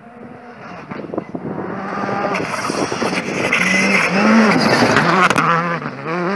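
Skoda Fabia R5 rally car's turbocharged four-cylinder engine approaching and passing close on a gravel stage. It grows steadily louder over the first four seconds, then the engine note rises and falls with throttle and gear changes as the car slides past on loose gravel.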